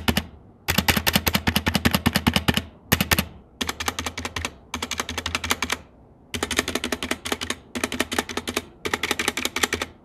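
Stabilized keys (spacebar, backspace) on a stock, unmodded Leaven K620 60% mechanical keyboard pressed rapidly over and over: fast clacks, about ten a second, in runs of one to two seconds with short pauses between.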